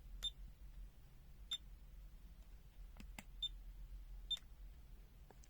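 About five faint, short clicks at uneven intervals over a low steady hum.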